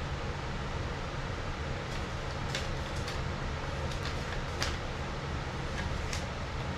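Steady low room hum, with a few faint, light clicks and rustles as a paper instruction sheet and a small box are handled.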